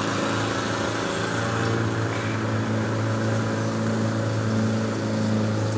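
Lawn mower engine running steadily, a constant droning hum.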